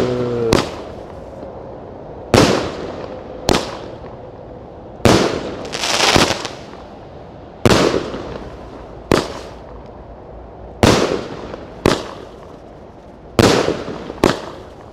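A 25-shot 30 mm fireworks cake firing: about eleven sharp bangs, one every one to two seconds, each trailing off briefly before the next.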